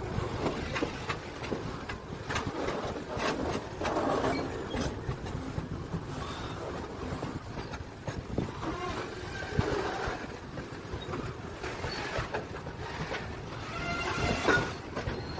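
Covered wagons of a slow-moving goods train rolling past close by, the wheels clicking and knocking irregularly over the rail joints over a steady rumble. A short high squeal comes in near the end.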